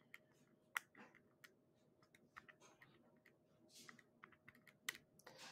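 Faint, irregular clicks of keys being tapped one at a time, as a multiplication is worked out, with two sharper clicks, one near the start and one near the end.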